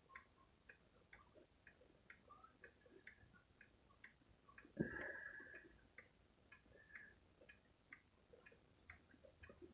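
Pendulum wall clock ticking steadily and faintly, about two or three ticks a second. About halfway through there is a brief louder knock with a short high tone.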